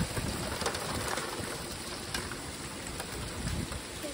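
Icy rain falling steadily, an even hiss with scattered sharp ticks of drops striking surfaces; a bird coos faintly through it.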